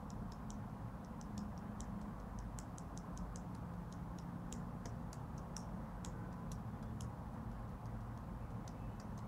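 Faint, irregular light clicks, a few a second, thinning out near the end, over a low steady hum.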